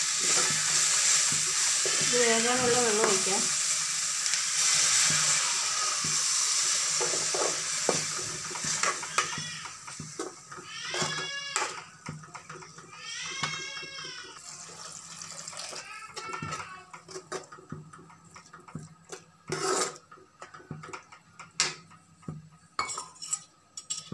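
Chopped yam flower and spices sizzling in an aluminium kadai with a steady hiss, as water is added to make the gravy, that fades after about eight seconds. A metal spoon then scrapes and taps the pan as the curry is stirred. Voice-like calls come through a few times in the middle.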